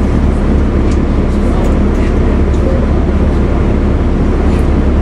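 Cummins ISL straight-six diesel of a 2004 Gillig Phantom transit bus running steadily: an even low drone with a few faint rattles.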